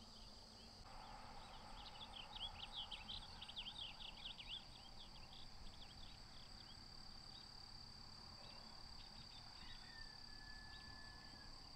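Faint outdoor ambience: insects give a steady high trill throughout. Birds add a quick run of chirps in the first few seconds, and a single held whistled note comes near the end.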